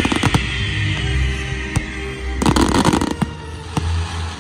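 Fireworks going off: a string of sharp bangs and pops, with a dense burst of crackle about two and a half seconds in, over music with steady low notes.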